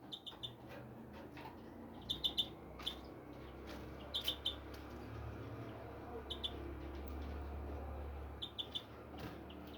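Small birds chirping in short quick runs of three or four notes, repeated every second or two, over a low steady rumble.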